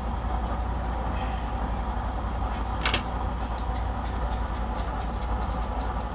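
Gas stove burner running steadily under a pot, a constant low rumble, with one sharp click about three seconds in.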